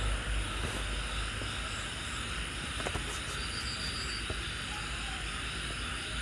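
Room tone: a steady background hiss over a low hum, with a couple of faint clicks about three and four seconds in.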